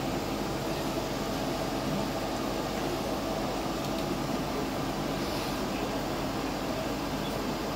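Steady whir of a Lumenis LightSheer Duet hair-removal laser system running in ready mode with its vacuum set to medium, its fan and pump running evenly.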